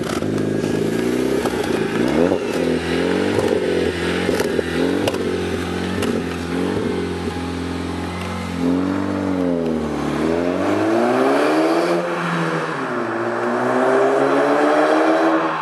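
Exhaust note of a VW Golf Mk5 through a custom stainless-steel sport exhaust with twin tailpipes. For the first eight seconds the engine is revved in short blips with a few sharp crackles. The car then drives off, its note dipping and climbing again twice as it accelerates.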